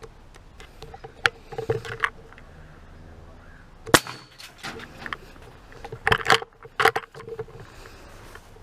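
A single sharp, loud shot from a Benjamin Rouge .357-calibre PCP air rifle about four seconds in. Shorter clicks and knocks come before and after it.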